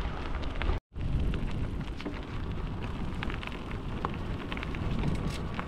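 Wind noise on the microphone and tyre noise of an e-bike rolling downhill, with scattered small clicks and crackles through it. The sound cuts out for a moment just under a second in.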